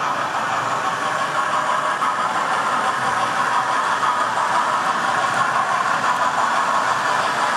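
Model trains running on a model railway layout: a steady mechanical noise from the locomotives' small electric motors and their wheels on the track.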